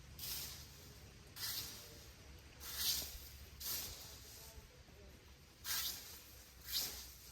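Six short, hissing scraping strokes, unevenly spaced, over a low steady background rumble.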